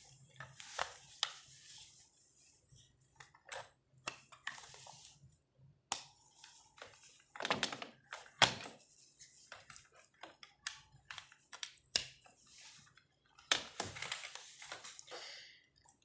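Irregular clicks, knocks and plastic rattling as a Cat 6 network cable is handled and its RJ45 plugs are pushed into a two-piece cable tester to test the wires.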